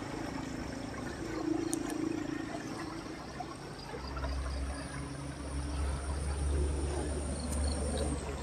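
Water flowing and trickling steadily, with a thin high insect buzz joining about halfway through. A low rumble also comes in about four seconds in.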